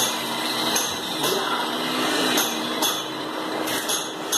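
Scattered light taps and clicks, about six in four seconds, from a laminated wooden wardrobe door being handled and fitted, over a steady background hiss.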